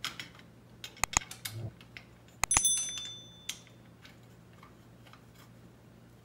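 Hand tools and steel bolts clicking and clinking against the ATV bumper's metal brackets as the bumper bolts are started, with a few sharp clicks about a second in. About two and a half seconds in comes a louder double clink that rings briefly like a small bell.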